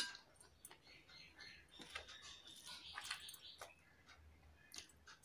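Faint eating sounds from hand-eating off a steel plate: soft chewing and mouth noises with scattered small clicks, one sharper click at the very start.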